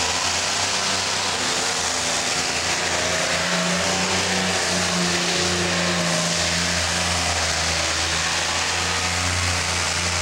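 Modified pulling tractor's engines running at high, fairly steady revs under load on a pull, a loud, continuous engine noise.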